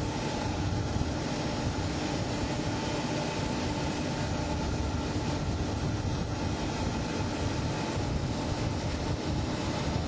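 Steady background noise: a constant low rumble and rushing with a steady mechanical hum, unchanging throughout.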